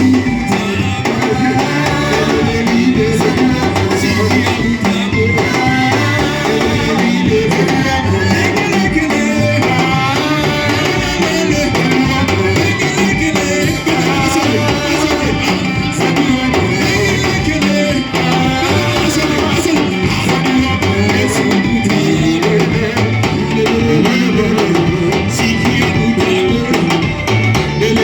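Church worship music: singing over guitar and a drum kit, played continuously at full level.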